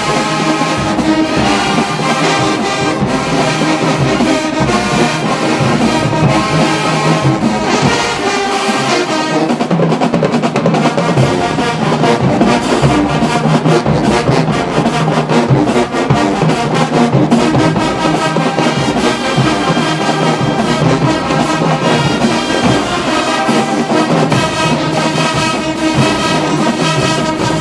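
Marching band playing a tune at full volume, led by trombones and trumpets, continuous throughout.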